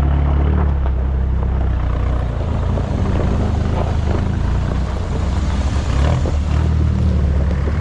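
Troller 4x4's diesel engine running, a steady low drone with scattered small knocks and rattles over it.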